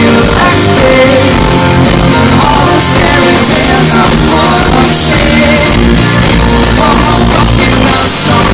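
Live pop-rock band playing through a concert PA, with a singing lead voice over guitar and drums. It is recorded right beside the speakers, so the bass is very loud.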